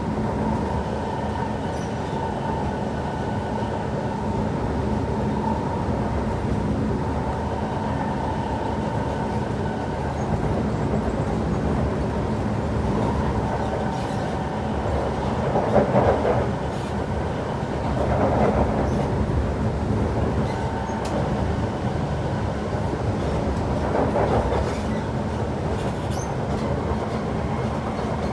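Inside a Kawasaki C151 metro train car running steadily between stations: continuous rumble of wheels and running gear with a constant hum. The noise swells louder about halfway through, and again a little later and near the end.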